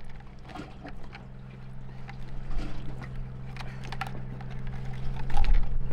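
Dungeness crabs clicking and scraping against each other and the plastic bucket as they are handled and one is lifted out, with scattered short knocks. Under it runs a steady low mechanical hum.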